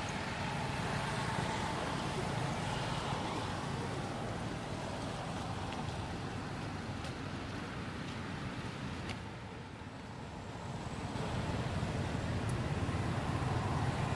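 Steady outdoor background noise: a low rumble with a hiss over it, dropping briefly a little past halfway and then returning, with a few faint clicks.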